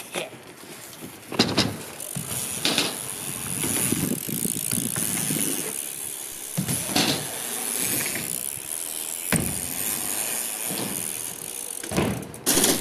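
BMX bike riding skatepark ramps: a steady tyre-rolling hiss, broken by several sharp thuds of wheels landing and striking the ramps.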